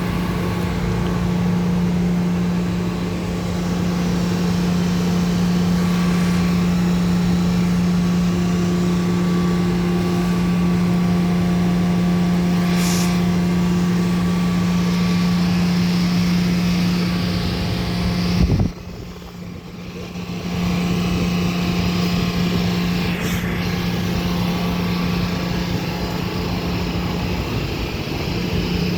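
Pool equipment running: a steady low hum with a rush of fan noise, as from a pool heat pump's compressor and fan. About two-thirds through it cuts out with a click, then builds back up over a couple of seconds.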